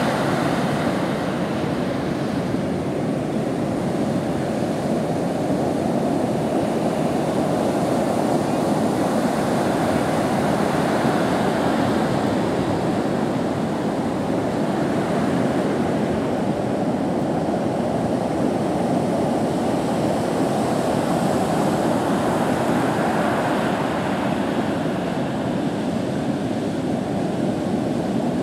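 Hurricane-swell surf breaking and washing up the beach: a continuous rushing wash of waves with no distinct single crashes.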